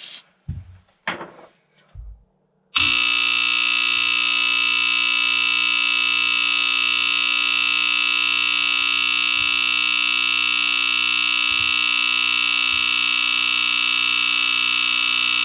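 1986 FireX FX1020 hardwired smoke alarm going off in a smoke test. Its Kobayashi CLB26 AC vibratory horn starts suddenly about three seconds in and sounds one loud, steady, unbroken tone. A few brief faint noises come before it.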